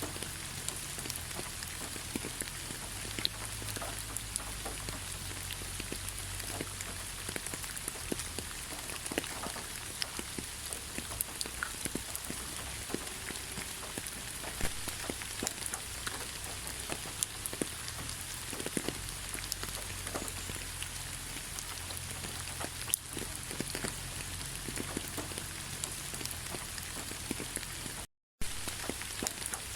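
Steady rain falling, with many separate drops ticking sharply over the even hiss. The sound cuts out completely for a split second near the end.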